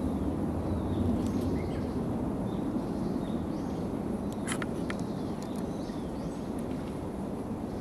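Steady low outdoor rumble, with faint high bird calls repeating now and then and a couple of sharp clicks about four and a half seconds in.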